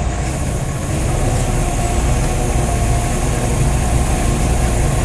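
Diesel forklift engines running under load, a steady low rumble that grows a little louder about a second in, as two forklifts work together to lower a large container.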